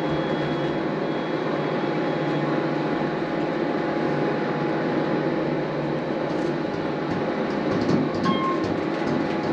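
Steady mechanical hum and rumble of a passenger elevator car in motion, with faint brief tones near the end.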